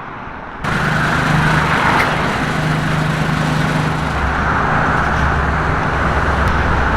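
Busy road traffic: a steady rush of passing cars and tyre noise with a low engine hum underneath, starting abruptly about half a second in.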